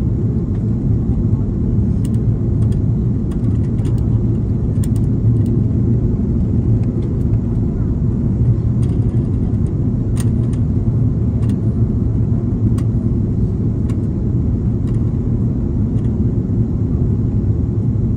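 Steady in-flight cabin noise of an SAS Airbus A330: a low, even drone of engines and airflow heard inside the cabin, with a few faint light ticks.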